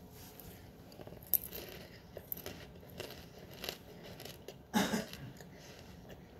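Close-up mouth sounds of a person chewing buttered popcorn, with small scattered crunches and one louder crunch about five seconds in.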